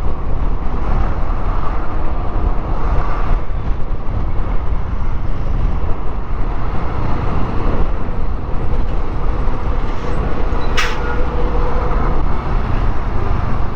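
Onboard riding sound of a Yamaha NMAX scooter in traffic: its single-cylinder engine runs steadily under heavy wind rumble on the microphone, with surrounding road traffic. There is one short sharp click near the end.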